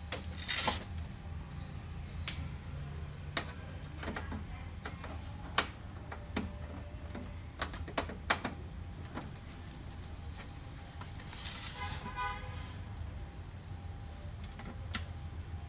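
Scattered light clicks and knocks of hands on the plastic casing and power button of an HP Color LaserJet Pro MFP M181fw, with a short rasping rattle about twelve seconds in, over a steady low hum. The printer makes no start-up sound at all, because it has a no-power fault.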